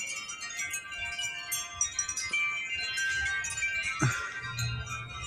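Several wind chimes ringing irregularly in gusty wind, many overlapping tones at once. About four seconds in, a brief falling sweep is followed by a low wind rumble.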